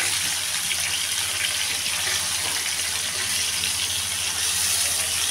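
Chicken pieces frying in shallow oil in a frying pan, a steady sizzle.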